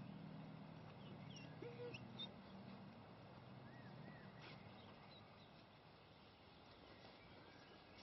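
Near silence: faint outdoor ambience with a few scattered small bird chirps and a low hum that fades out after about three seconds.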